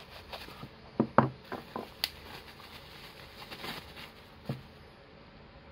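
Bubble wrap and a small cardboard box being handled and unwrapped by gloved hands: rustling and crinkling, with a string of sharp crackles and taps from about one second in to about four and a half seconds in.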